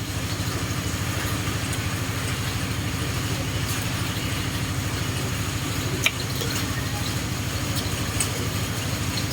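A steady low motor drone with a fast, even pulse, like an idling engine, running throughout, with a couple of light clicks about six and eight seconds in.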